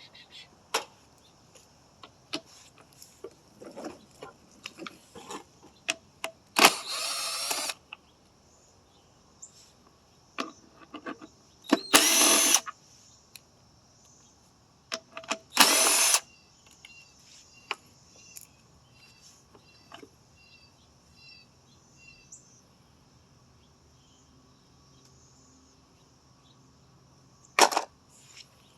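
Small tools and parts clicking and knocking while a small engine is worked on, broken by four short, loud hissing sprays of about a second each.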